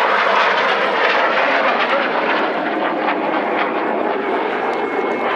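Jet aircraft engine noise from a display jet in the air: a steady rushing sound that eases off slightly.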